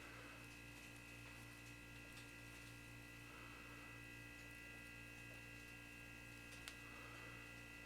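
Near silence: a steady electrical hum of several fixed tones, with one faint click about two-thirds of the way through.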